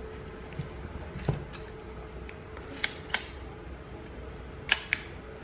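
Copal-MXV leaf shutter of a Yashica 635 twin-lens reflex camera being worked. A soft knock comes about a second in, then two pairs of sharp clicks, the two clicks in each pair about a third of a second apart.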